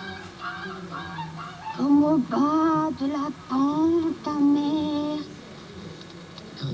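Recorded voice giving a series of drawn-out, wavering, sung cries, each bending in pitch and breaking off after about half a second to a second, quieter near the end.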